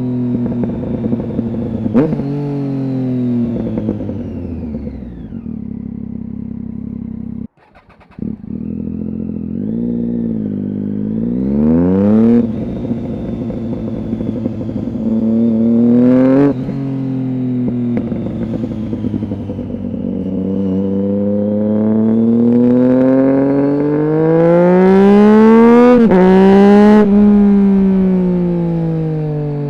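Triumph Street Triple 675's inline three-cylinder engine through a Roadsitalia aftermarket exhaust with one of its two dB killers fitted, pulling through the gears. The revs fall away over the first few seconds and the sound cuts out briefly about seven seconds in. It then climbs in long pulls, broken by sudden upshifts about twelve, sixteen and twenty-six seconds in.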